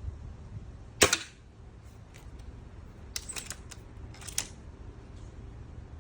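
A GAMO .22 break-barrel air rifle fires once about a second in: a sharp crack with a second crack right behind it. A few quieter sharp clicks and knocks follow between about three and four and a half seconds in.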